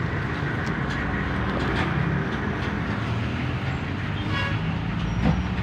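Steady rumble of a running motor-vehicle engine, with a few faint clicks and a quick run of ticks about four and a half seconds in.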